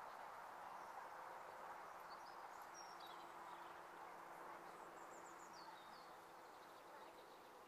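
Near silence: faint outdoor ambience with a steady low hum and a few faint, short bird chirps.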